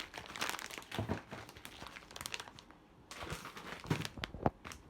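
Packs of rock sugar being handled, the packaging crinkling in two spells, with a few sharper knocks near the end.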